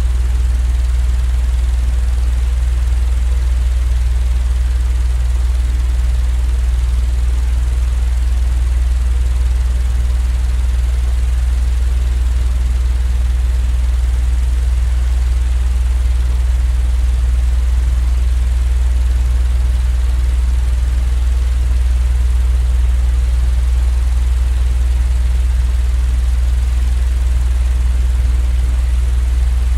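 Steady, unchanging low drone with a strong deep hum and a fainter hiss above it: a continuous fan- or train-like white-noise sound played for sleep.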